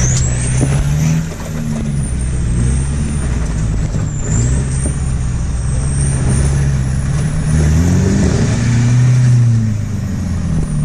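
Nissan Navara's turbo-diesel engine labouring under load as the ute crawls up a rocky, rutted climb, its revs rising and falling.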